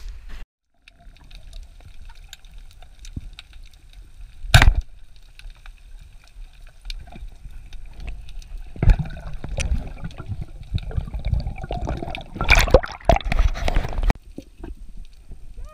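Muffled underwater water noise heard through a diver's camera housing: a low rumble with scattered clicks, one sharp knock about four and a half seconds in, and louder, busier water movement from about nine seconds on.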